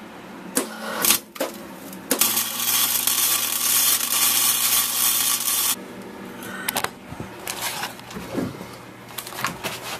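Electric arc welder laying a bead on a thin steel car-body brace: the arc runs as a steady loud hiss for about three and a half seconds, starting about two seconds in. A few short knocks and clicks come before and after it.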